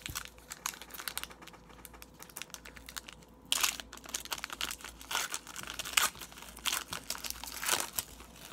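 Foil wrapper of an Upper Deck hockey card pack crinkling and tearing as it is opened by hand: a string of sharp crackles, loudest in bursts about three and a half, six and nearly eight seconds in.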